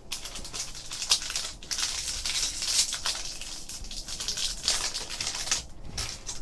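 Trading cards and their packaging being handled: a crisp rustling with small clicks and taps, stopping near the end.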